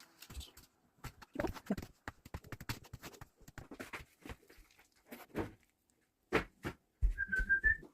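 Close-up eating sounds: irregular crunching and clicking of food being bitten and chewed. Near the end, a short wavering high whine comes over low thuds.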